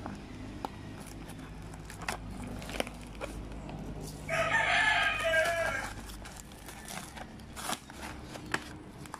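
A rooster crows once, about four seconds in, a single call of about a second and a half and the loudest sound here. Around it come scattered crackles and rustles of paper and corrugated cardboard packaging being torn and handled.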